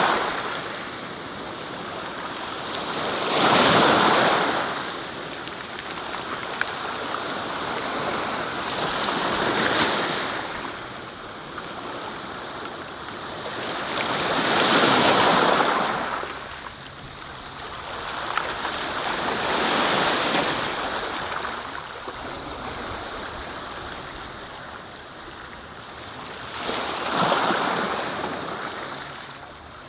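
Sea waves breaking and washing in: a rushing noise that swells and fades every five to six seconds, with six surges in all.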